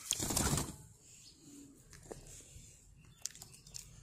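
A short burst of rustling and handling noise from a black francolin held in the hand, its feathers and wings moving against the hand, lasting under a second. It is followed by quiet with a few faint clicks.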